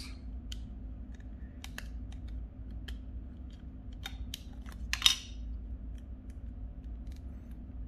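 Small plastic clicks and scrapes as the battery cover of a Motorola V171 flip phone is pried and slid off by hand, with one louder click and scrape about five seconds in. A steady low hum runs underneath.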